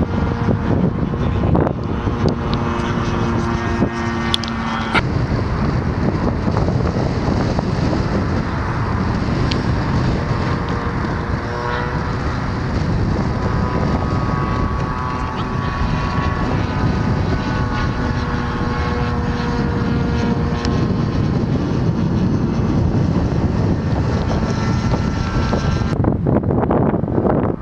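Radio-controlled model airplane's motor and propeller buzzing overhead, its pitch drifting up and down as it circles, under heavy wind noise on the microphone. A lower steady hum stops about five seconds in.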